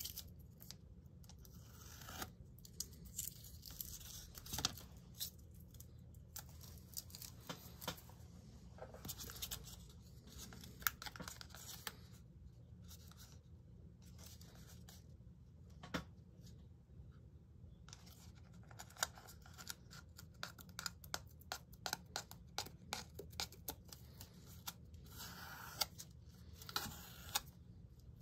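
Masking tape being peeled off a freshly airbrushed model part, strip by strip: faint, irregular tearing and crackling with small clicks, coming thicker and quicker in the second half.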